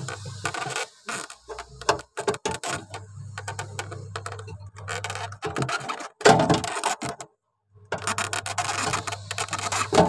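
Hands handling the plastic lining and copper tubing inside a refrigerator's freezer compartment: irregular rubbing, scraping and light knocks, the loudest a thump about six seconds in, over a steady low hum.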